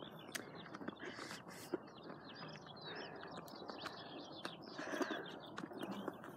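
Small birds chirping in quick, short calls over a steady faint background hiss.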